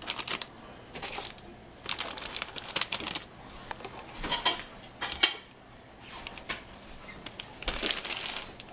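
Plastic accessory bags from a motherboard box being handled, crinkling and rustling in several short bursts.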